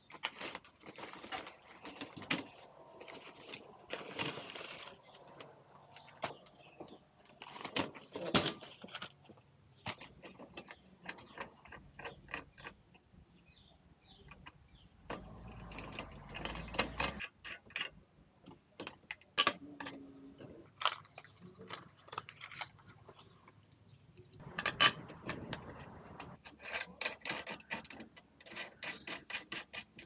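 Metal clicks, clinks and rattles of a sheet-metal mailbox door and its cam lock being handled and worked on with locking pliers at the lock's nut during a lock replacement. There is a quick run of ticking clicks near the end and a short low rumble about halfway.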